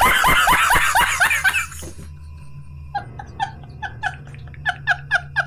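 A man laughing hysterically: a loud run of rapid ha-ha bursts for about two seconds, then, after a short lull, a quick string of higher-pitched, squeaky laughs.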